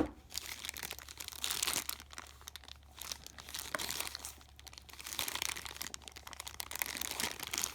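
Plastic packaging crinkling and rustling in the hands, a Ziploc-type bag being handled, with irregular small crackles.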